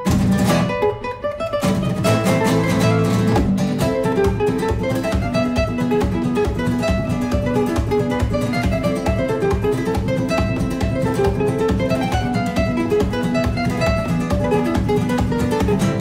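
Background music: acoustic guitar in a flamenco style, going into fast, steady strumming about two seconds in.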